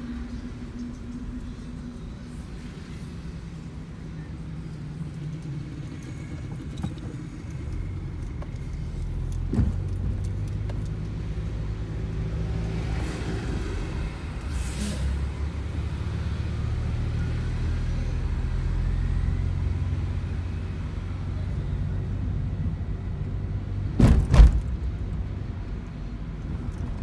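Car driving on city streets: a steady low engine and road rumble that grows louder midway, with two sharp knocks close together near the end.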